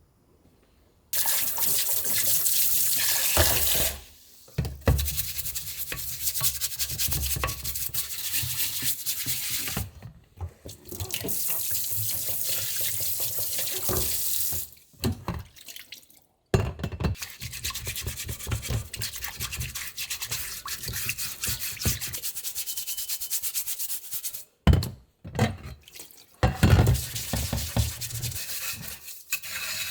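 Water running from a kitchen tap with scrubbing, as in washing up at the sink. The water starts about a second in and is cut off and turned back on several times.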